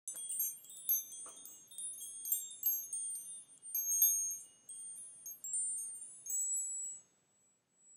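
Wind chimes tinkling: many small, high-pitched ringing tones struck at random and overlapping, which stop about seven seconds in.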